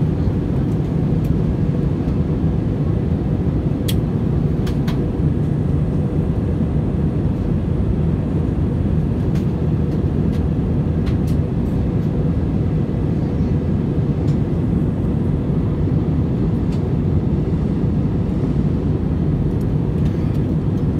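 Steady low roar of engine and airflow noise inside a jet airliner's cabin in flight, heard from a window seat, with a few faint clicks.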